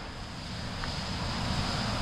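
Wind buffeting the microphone: a steady rushing hiss with an uneven low rumble.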